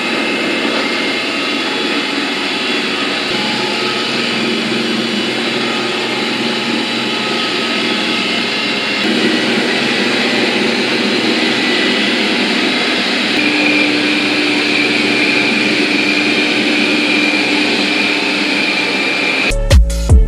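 Xiaomi Lydsto R1D robot vacuum running: a steady whir of its suction motor, with a whine that changes pitch about nine seconds in and again around thirteen seconds in.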